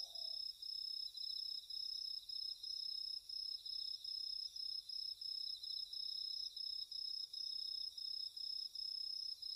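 Crickets chirping faintly in a steady, regular pulsing rhythm: the cartoon's night-time ambience.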